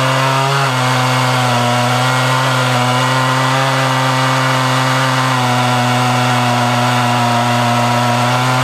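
Stihl MS880 two-stroke chainsaw running steadily at high revs under load, ripping lengthwise through an oak log in a chainsaw mill. Its pitch dips briefly about half a second in.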